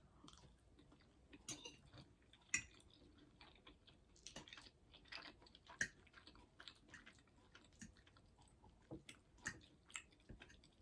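Quiet chewing of soft cauliflower-pasta mac and cheese: faint, scattered wet mouth smacks and clicks, close to the microphone.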